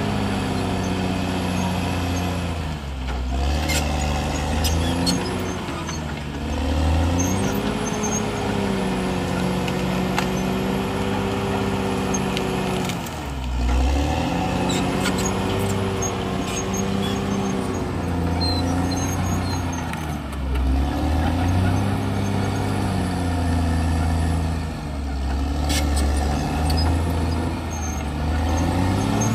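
CAT D6R crawler dozer's diesel engine working under load, its pitch dropping and picking up again about five times as the blade pushes soil and logs. Scattered sharp clicks and knocks sound over it.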